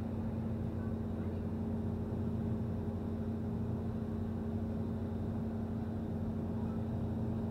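Steady low drone of a river cruise boat's engine running at a constant pace, with a continuous hum, heard on board.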